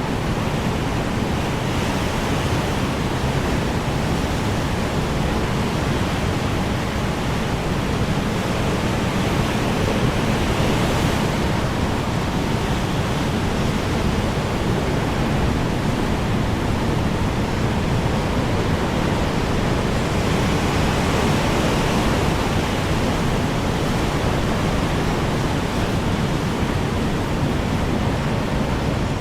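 Strong wind blowing, a steady rushing noise with a heavy low rumble that holds an even level throughout.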